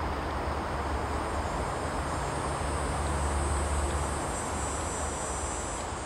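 Steady chorus of insects, a high continuous trill, over a low steady rumble.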